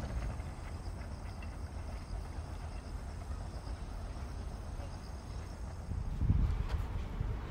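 Outdoor ambience: a steady low rumble with faint insect chirring. From about six seconds in, irregular low buffeting of wind on the microphone grows louder.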